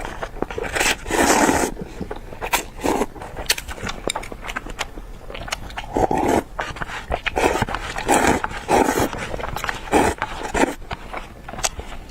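A person eating noisily close to the microphone: irregular slurps and sucking breaths of half a second to a second, with wet clicks and smacks of chewing in between.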